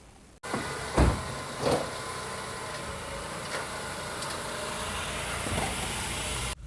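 2010 Honda Civic being driven: steady engine and road noise that starts abruptly just after a brief silence, with two thumps about a second and a second and a half in.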